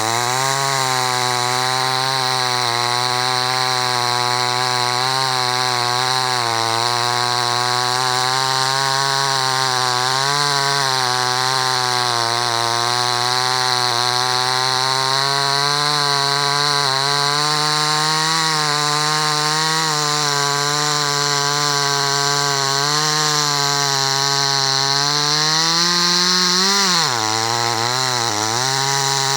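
Chainsaw running hard while cutting a tree, its engine pitch wavering with the load. Near the end the pitch climbs, then drops sharply for a moment and picks up again.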